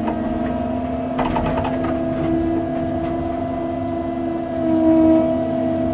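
Cat 309 CR excavator's engine and hydraulics running with a steady whine. A few knocks come about a second in, and the sound swells briefly about five seconds in.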